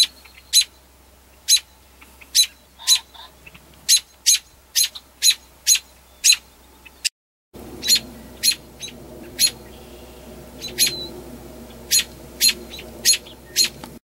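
American robin giving sharp, high alarm calls over and over, roughly one a second: the scolding of an adult upset by a person close to its nest of chicks.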